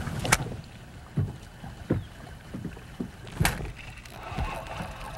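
Lake water lapping and slapping against a bass boat's hull, heard as a low rumble with a string of short, irregular knocks. A sharp click comes just after the start.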